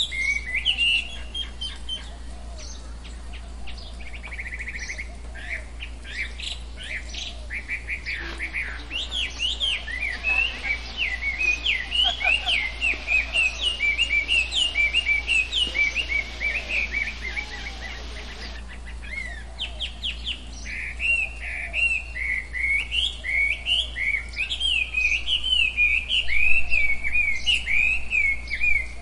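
Birds chirping rapidly and continuously in many short high calls, over a steady low hum. A soft hiss runs beneath the calls from about a third of the way in until about two-thirds through.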